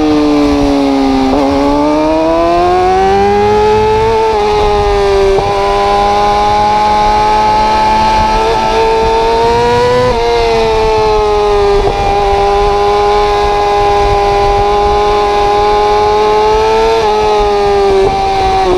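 Yamaha R6 600 cc inline-four sport-bike engine held high in the revs, loud and continuous. Its pitch dips, climbs and then holds high, stepping abruptly a few times.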